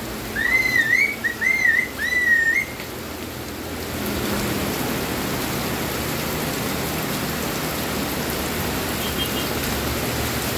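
Heavy rain falling on wet ground and vegetation, a steady hiss that grows louder about four seconds in. In the first three seconds a few short wavering whistles rise and fall over the rain.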